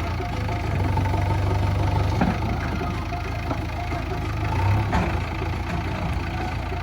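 JCB 3DX backhoe loader's diesel engine running steadily, its low note swelling twice as it takes load, with two sharp knocks about two and five seconds in.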